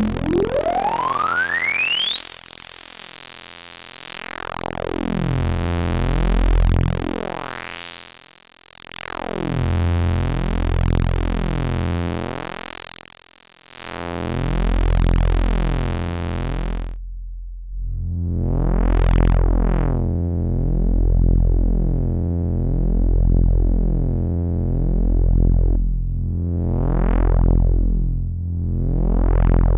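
Modular synthesizer sound through a CubuSynth Dual CS-20 voltage-controlled filter, an MS-20-style filter: a low, buzzy, pulsing note pattern under a sharp resonant tone that glides steeply upward over the first few seconds. The filter cutoff then sweeps slowly open and closed. Later the highs are cut off and the filter makes several quicker up-and-down sweeps.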